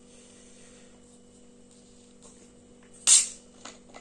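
Plastic bottle of Sprite being twisted open: about three seconds in, one short, sharp hiss of escaping carbonation as the cap's seal breaks, then a few faint clicks of the cap, over a low steady hum.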